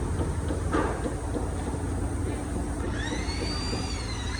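Steady low machine rumble, joined about three seconds in by a high whine that wavers in pitch, dipping near the end.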